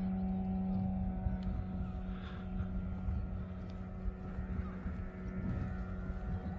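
A steady engine drone holding one pitch with overtones, over a low rumble of wind on the microphone.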